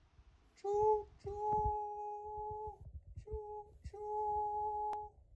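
A voice humming four held notes on one steady pitch: a short note, a long one, another short one and a long one. Soft low knocks sound underneath.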